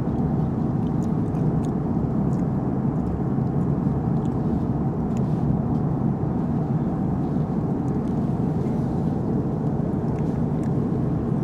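Steady low drone of a jet airliner's cabin in flight, engine and airflow noise. A few faint light clicks sit on top.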